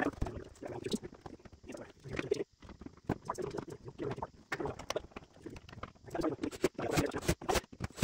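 Plastic interior panel of a refrigerator being handled and fitted back into place: irregular clicks, knocks and scraping of plastic on plastic.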